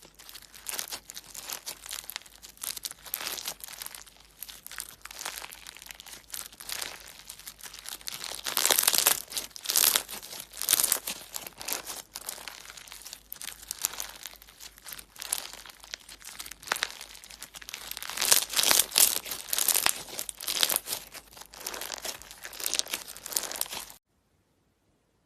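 Slime being squeezed and worked by hand, giving dense rapid crackling and popping clicks, louder in two stretches, that cut off suddenly near the end.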